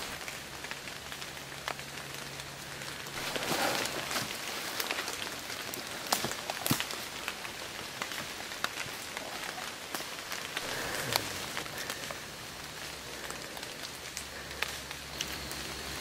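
Footsteps rustling and crunching through leaf litter and brush, with scattered sharp twig snaps.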